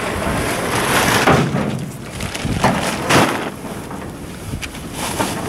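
Rustling and knocking of camping gear being handled and unloaded from a canoe onto a log platform, in several uneven surges.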